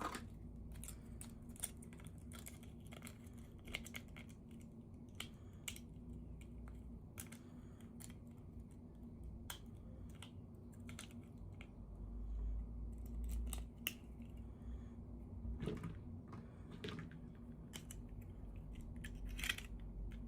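Scattered small clicks, taps and light rustles of hands handling plastic toy packaging and small doll pieces, a few louder taps near the end, over a faint steady low hum.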